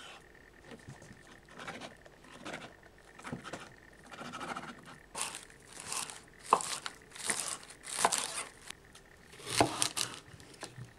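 Kitchen knife cutting spring onions and then a red onion on a wooden chopping board: a run of irregular crisp, crunchy cuts, soft at first and louder from about halfway.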